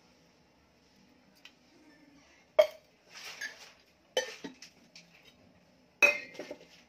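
Three sharp knocks of kitchenware at a gas stove, about a second and a half apart, with a short hiss between the first two.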